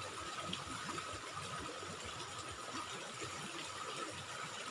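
Steady riverside ambience: an even, soft rush of background noise with a faint steady high tone running through it, and no distinct events.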